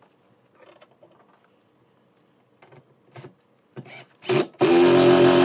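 A cordless drill/driver briefly spins, then runs loudly and steadily, driving a bolt or screw to fix a TV wall-mount bracket to the wall. Before that there are a few light knocks and taps as the bracket is handled against the wall.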